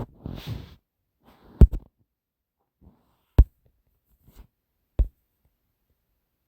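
A few sharp, isolated taps, about a second and a half apart, after a short breathy noise at the start.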